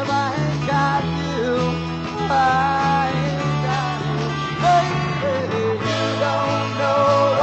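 A 1967 rock band recording, mainly electric guitar and bass, with singing over it.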